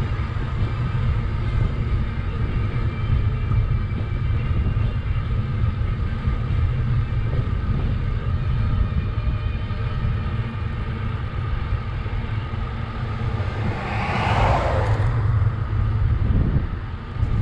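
Steady low rumble of wind over a bicycle-mounted camera's microphone while riding along a paved road, with a brief swell of louder, brighter noise about fourteen seconds in.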